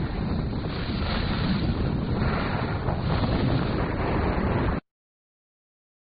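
Wind buffeting the microphone of a fast-moving camera: a deep, steady rushing noise that cuts off abruptly to silence near the end.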